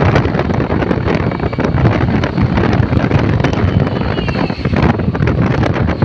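Wind buffeting the microphone on a moving two-wheeler, loud and steady with gusty thumps throughout, over the rumble of riding on the road.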